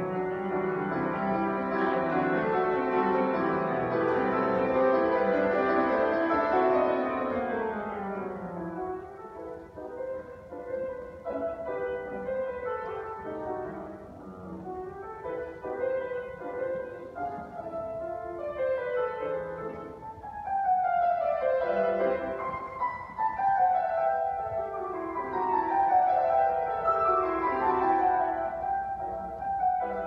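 Grand piano played solo. A full passage of sustained chords for the first eight seconds or so gives way to a quieter, sparser stretch, and then to falling runs of notes near the end.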